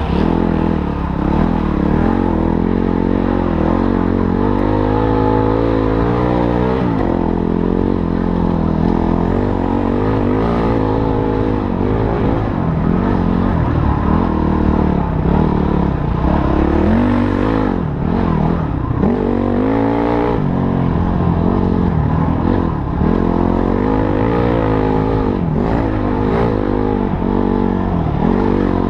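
Motorcycle engine running under load, its pitch rising and falling again and again as the throttle is opened and closed, with some clattering along the way.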